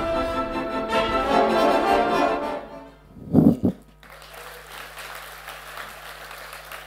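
Orchestral ballet music with brass plays and breaks off about three seconds in with a short, loud low chord. Quieter applause follows.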